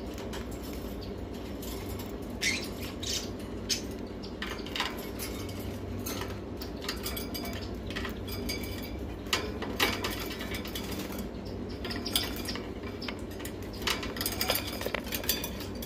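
Scattered light clicks and taps from a ringneck parakeet moving in its wire cage, with a quick run of taps near the end as its beak reaches the phone, over a steady low hum.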